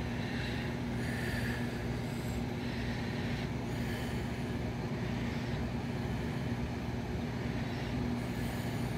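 Steady low mechanical hum with a faint hiss over it, unchanging throughout.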